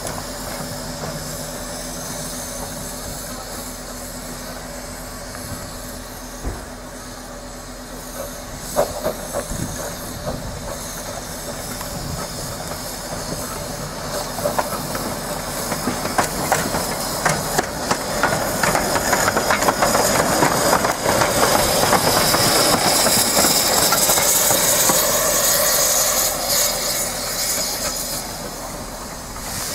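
A 15-inch-gauge one-third-scale steam locomotive running slowly past over pointwork, its wheels clicking over the rail joints. The loco gets louder as it nears, and steam hisses strongly through the second half.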